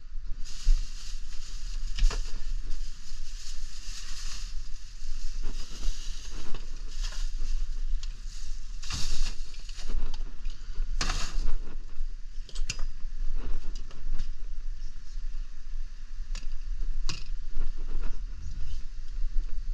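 Rustling and handling noise from a phone camera being moved about, with scattered clicks and knocks over a steady low rumble.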